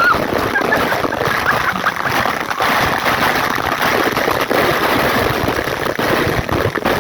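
Waterfall, water rushing and splashing in a steady, loud roar of white noise.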